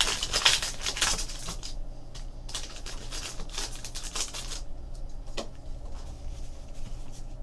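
Foil wrapper of a 2016 Upper Deck Goodwin Champions trading-card pack being torn and crinkled open, then a few light clicks of the cards being handled.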